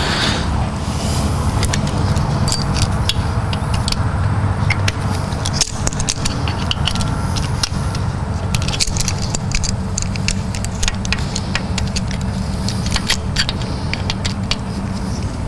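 Small metallic clicks, clinks and scrapes of pliers working a loosened freeze plug out of its bore in a Cummins 5.9L engine block, over a steady low hum.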